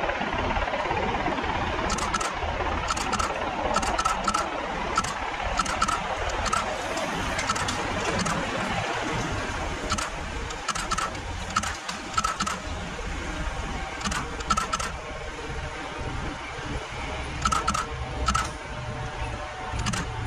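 Racing road bicycles passing close by: tyre hiss on tarmac with short, irregular freewheel clicks. Wind rumbles on the microphone throughout.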